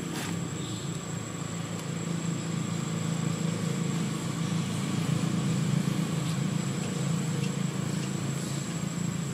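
A steady low engine rumble, like a motor vehicle running, growing a little louder through the middle, with a thin steady high tone above it.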